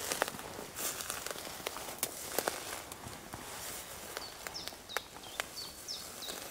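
Footsteps through brush, with rustling and sharp snaps and clicks. From about two-thirds of the way in, a bird calls over and over with short, high, falling notes, about two a second.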